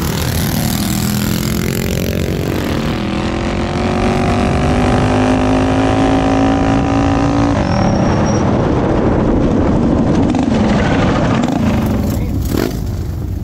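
A drag-racing motorbike's engine pulls hard under full throttle, its pitch climbing slowly and steadily. About seven and a half seconds in the tone cuts off sharply, and a rougher engine noise carries on.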